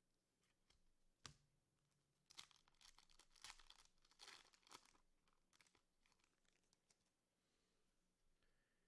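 Faint tearing and crinkling of a trading card pack wrapper being opened by hand, with a light click about a second in.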